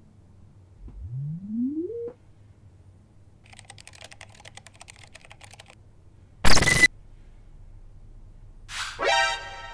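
Electronic sound effects: a rising power-up whine about a second in, then rapid keyboard-like typing clicks while on-screen text types out, then a short, loud burst of static. Pitched electronic tones begin near the end.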